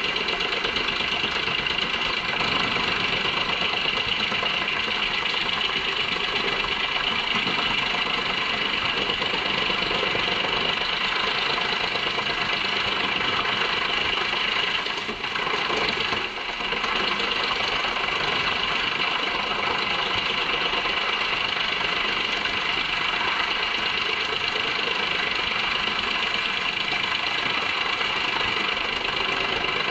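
JENZ HEM 593-R truck-mounted drum chipper running steadily under load as it chips poplar, a loud continuous mechanical din. Its level drops briefly twice about halfway through.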